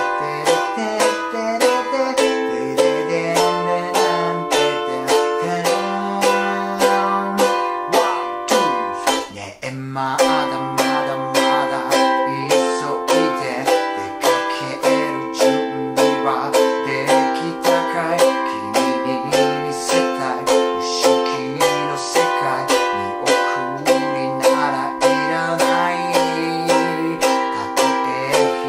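A small ukulele strummed in a steady rhythm through simple chords such as F, G7, E7 and Am, with a short break in the strumming about nine seconds in. A man sings along over the chords.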